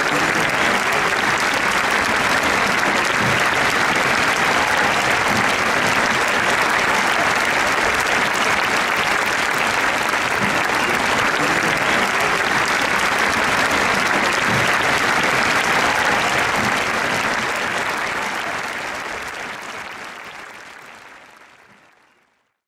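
Large audience applauding steadily, the clapping fading out over the last few seconds.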